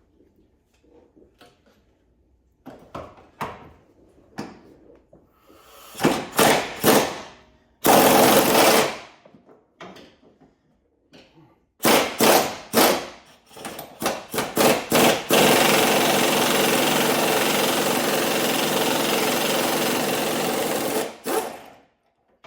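Impact wrench hammering on the rear shock's mounting bolt: several short bursts, then a steady run of about six seconds before it stops.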